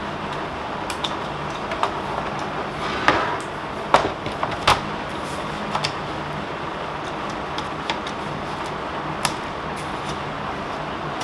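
Scattered clicks and knocks of a picture frame and its cardboard backing being handled and turned on a wooden table, with a small plastic tool pressed along the frame's edge; the loudest knocks come around three to five seconds in. A steady hum runs underneath.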